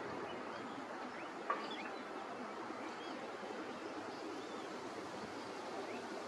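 Steady outdoor hiss of open-air lakeside ambience. A single sharp, short sound comes about one and a half seconds in, followed by a few faint, short, rising high chirps.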